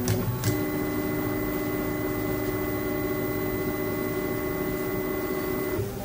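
Stepper motors of a Sub33D home-built 3D printer running an auto-home. A few sharp clicks come first, then a steady pitched whine for about five seconds that cuts off suddenly when the axes reach home.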